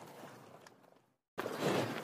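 Outdoor pasture ambience fades out to a moment of dead silence. A second outdoor recording then cuts in abruptly as a steady noisy hiss with faint ticks.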